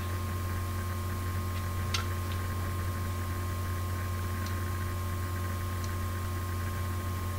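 Steady low electrical hum with a thin high steady tone above it, and a few faint, scattered ticks.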